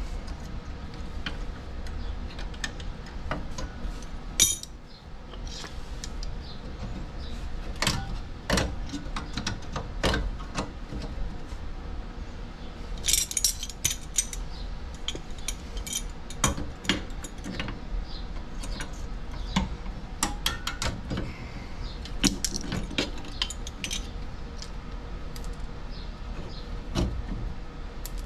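Pliers and steel drum-brake hardware clinking and scraping as springs and shoes are worked off the backing plate, in irregular sharp clicks with small clusters.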